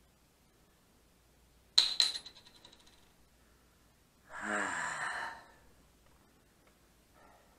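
A small hard object drops and bounces several times on a hard surface, a bright clink followed by quickly fading rebounds. About two and a half seconds later comes a groan-like vocal sound of about a second, falling in pitch.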